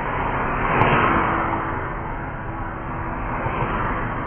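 Cars passing on the road, their tyre noise swelling as one goes by about a second in and building again near the end as the next approaches, over steady traffic rumble.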